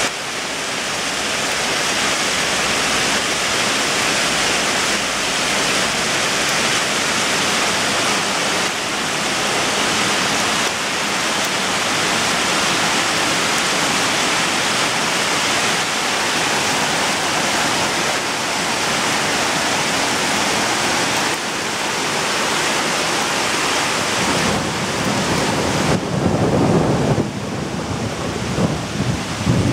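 Hailstorm: a steady dense hiss of hail and rain falling on parked cars and tarmac. A low rumble comes in near the end.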